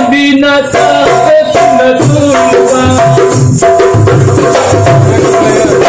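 Dholak played with the hands, giving deep low strokes and sharper slaps under a melody of held notes that step up and down, in Bhojpuri devotional folk music.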